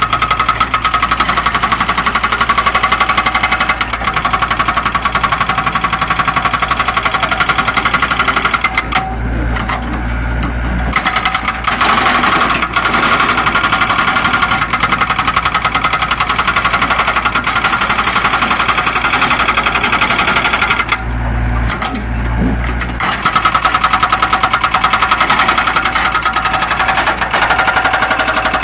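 Zoomlion excavator running at working revs with a fast, steady rattling clatter. Twice, about nine and twenty-one seconds in, the sound turns deeper for about two seconds, then returns.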